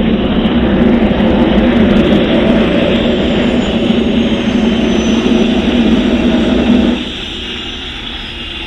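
Cessna Citation II business jet's twin turbofan engines running loud as it rolls along the runway after landing. The roar drops suddenly about seven seconds in.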